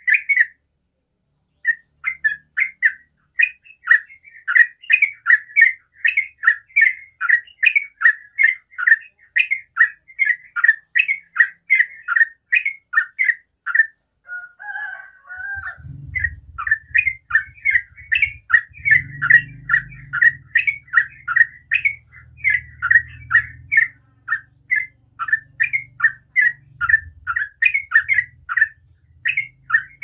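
Sooty-headed bulbul singing a rapid, continuous run of short chattering notes, about three a second, breaking off briefly near the middle. A low rumble sits underneath in the second half.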